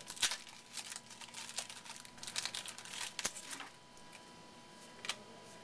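Trading-card packs and cards being handled: crinkling pack wrappers and the light clicks and rustles of cards, busy for the first three and a half seconds, then quieter with one more click near the end.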